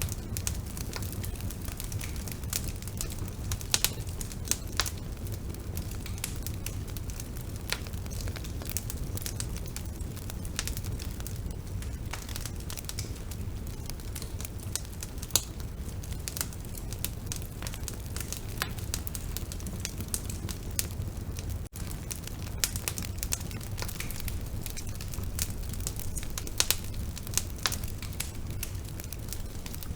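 Bonfire burning: a steady low rumble of flame with frequent sharp crackles and pops.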